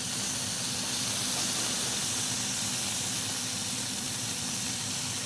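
Bacon sizzling steadily in its fat on a hot cast iron griddle, an even frying hiss, with a low steady hum underneath.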